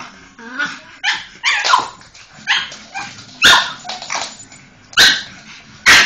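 A pug barking over and over at a vacuum cleaner: about nine sharp barks, coming at uneven gaps of half a second to a second and a half.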